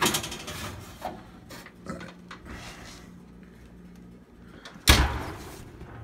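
Metal baking tray and oven rack clattering as the tray of wax-filled glass jars is drawn out of the oven, then a single heavy thump about five seconds in, the oven door being shut.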